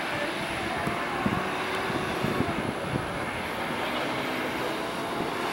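Britten-Norman Islander's twin propeller engines running steadily as the plane rolls along the runway.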